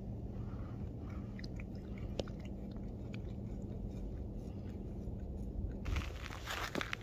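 Maine Coon cat licking its paw while grooming close up: small wet clicks of the tongue. Near the end a louder crackling rustle takes over.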